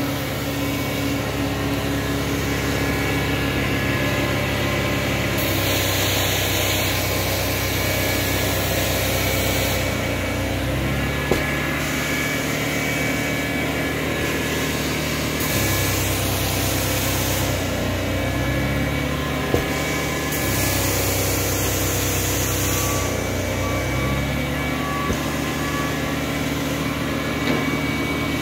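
King Cobra carpet-cleaning machine running steadily with its vacuum pulling through the hose and floor wand. A high rushing hiss comes and goes three times over it.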